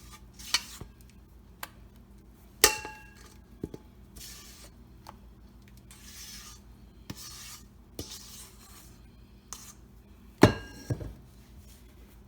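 Cake batter being scraped out of a mixing bowl into a bundt pan, with repeated soft scraping strokes. Two sharp knocks of kitchenware ring briefly, one about a quarter of the way in and one near the end.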